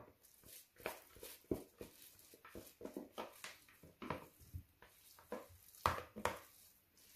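Clear plastic spatula scraping and tapping against white bowls as crumbled tofu salad is pushed from a large bowl into a small one: a string of soft knocks and scrapes, the loudest a pair about six seconds in.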